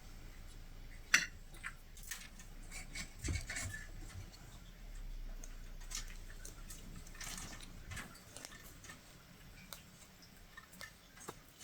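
Latch hook tool working yarn into rug canvas: faint, irregular small clicks of the hook and its latch with soft rustles of yarn, and one sharper click about a second in.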